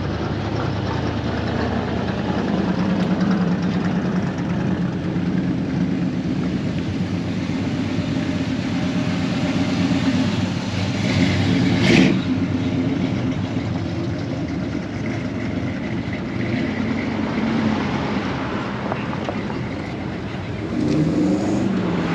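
Classic and muscle cars' engines running as the cars pull away past one after another. There is a single sharp crack about halfway through, and near the end an engine's pitch rises and falls.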